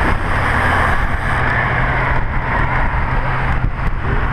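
Steady rush of wind and road noise on the microphone of a camera riding along with road bicycles, with a low rumble underneath.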